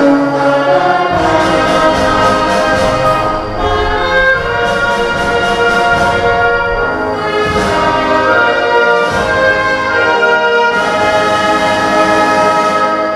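Orchestral music with brass instruments playing steadily.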